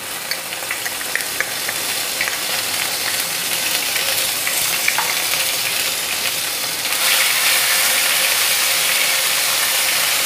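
Onion paste sizzling and crackling in hot oil in a non-stick kadai, with bay leaf, nigella and fenugreek seeds and green chillies in the oil. The sizzle grows louder about seven seconds in, and a wooden spatula stirs the pan near the end.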